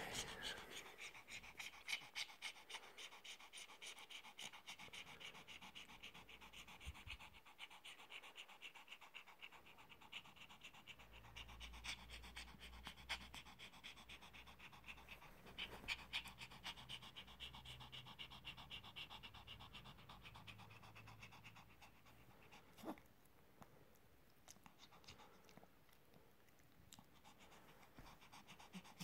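A Pomeranian panting fast and evenly with its tongue out, faint, easing off in the last few seconds.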